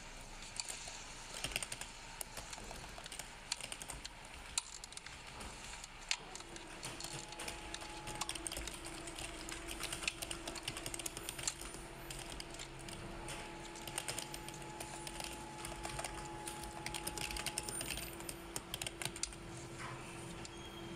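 Irregular small plastic clicks and snaps as the central dashboard air vent assembly of a BMW 5 Series F10 is handled and pried apart with fingers and a small tool. A steady hum comes in about six seconds in and runs under the clicks.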